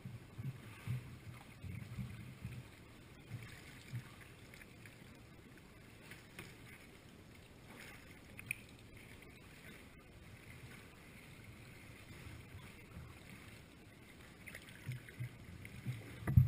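Sea kayak gliding on calm water, with small waves lapping and slapping softly against the hull and the paddle dipping, heard close to the deck. A louder thump comes near the end.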